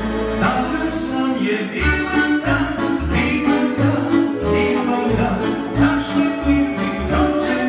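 Music with a steady, pulsing bass beat.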